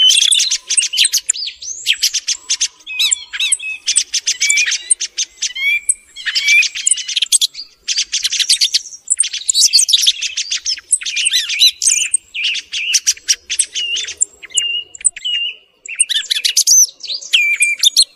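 Song thrush singing: a loud, varied run of short phrases of rapid notes, rattles and clear whistles, with some phrases repeated back to back and only brief pauses between them.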